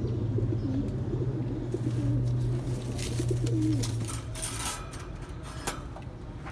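Domestic pigeons cooing in a loft, low wavering coos through the first few seconds. A low steady hum lies under them until about four seconds in, and a burst of rustling and clicking follows about three to five seconds in.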